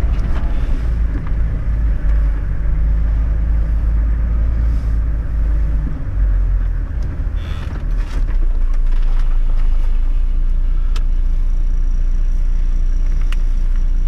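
Four-wheel-drive vehicle engine running at low revs with a deep, steady rumble while working along a rutted dirt track. The rumble varies in the first half and evens out after about eight seconds, with a couple of faint clicks.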